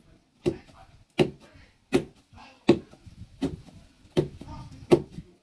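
Fufu being pounded with a long wooden pestle in a mortar: seven dull thuds at a steady pace of about one every three-quarters of a second.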